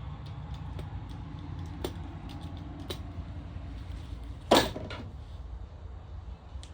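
Handling noise from fitting a rubber seal to a van's pop-out window: scattered light clicks and one sharp knock about four and a half seconds in, over a steady low hum.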